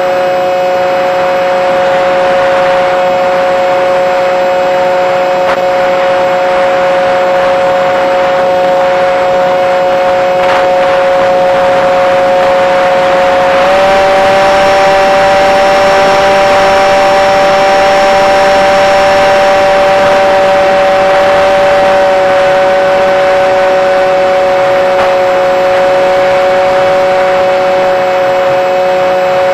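The Multiplex Shark RC airplane's motor and propeller running in flight, heard from a camera on board: a loud, steady whine that steps up slightly in pitch about halfway through and eases back down a little later.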